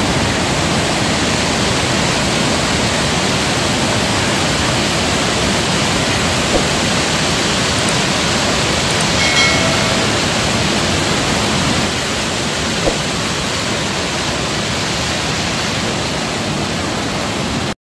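Floodwater rushing over a stepped river weir: a loud, steady roar of water. It drops slightly in level about twelve seconds in and cuts off abruptly near the end.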